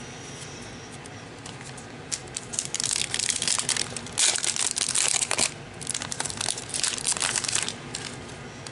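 Plastic wrapper of a 2021 Panini Chronicles baseball card pack being torn open and crinkled in the hands: dense crackling that starts about two seconds in, pauses briefly a couple of times, and stops near the end.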